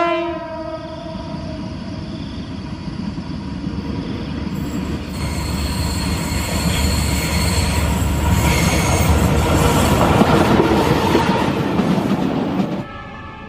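A CC201 diesel-electric locomotive (GE U18C) hauling tank wagons approaches and passes close by, rumbling louder as it nears. The horn's last blast ends right at the start. A high wheel squeal rises from the curve partway through, and the sound cuts off suddenly near the end.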